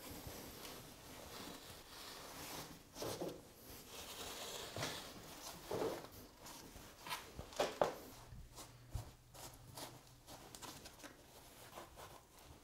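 Faint, irregular rustling and scraping of a strip of insulation being pushed by hand into a gap under a window sill.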